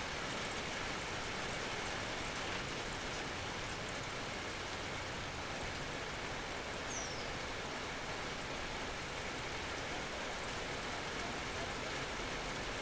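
Steady natural rain falling, an even hiss of drops. A single short high chirp falls in pitch about seven seconds in.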